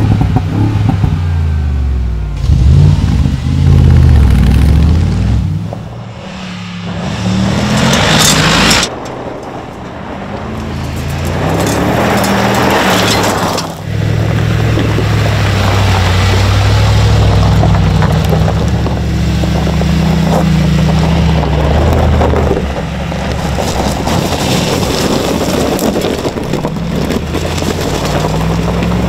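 Mercedes-AMG G63's twin-turbo V8 revving, its pitch rising and falling over the first few seconds, then running under load at a steadier note. Two loud bursts of noise break in, about eight and twelve seconds in.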